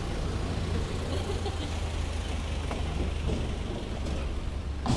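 Street traffic ambience: a van's engine running as it passes close by, a steady low hum, with a sharp click near the end.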